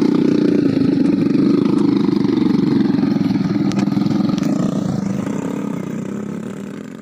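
Motorcycle engine running steadily with a low drone, dying away gradually over the last few seconds.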